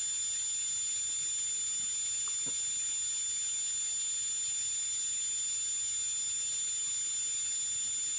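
Steady background hiss with a thin, constant high-pitched electronic whine, and only a faint tick once, with no distinct sound standing out.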